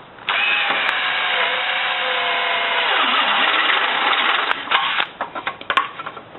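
Power drill running a step drill bit through the sheet steel of a car frame rail, cutting for about four seconds with a faint whine that drops in pitch as it winds down, followed by a few light clicks and taps.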